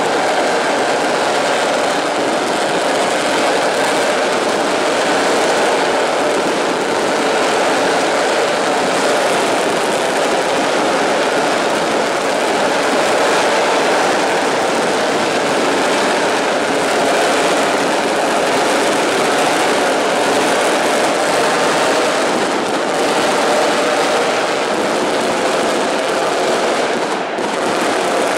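A packed stadium crowd of football supporters cheering and chanting, a dense, steady wall of voices that dips briefly near the end.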